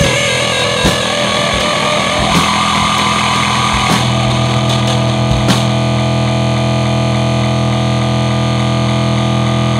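Harsh noisecore: dense, distorted noise with scattered sharp hits, which about four seconds in settles into a steady, loud distorted drone with a fast, even pulsing.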